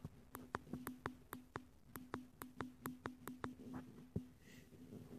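Faint, unidentified pulsing sound: a rapid, even train of sharp clicks, about four a second, over a low steady hum. The clicks stop about four seconds in.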